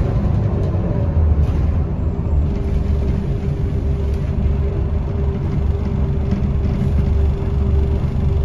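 Scania L94UB bus driving, heard from inside the passenger cabin: a steady low engine and road rumble, with a steady whine joining about two and a half seconds in.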